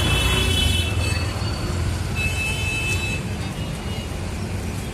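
Busy street traffic: a steady low rumble of engines, with a high vehicle horn honking at the start and again about two seconds in.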